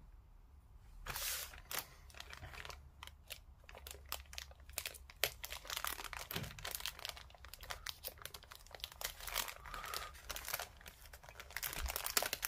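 Thin clear plastic bag crinkling and rustling in a dense crackle as it is handled and slit open with a craft knife to get at the plastic sprues inside.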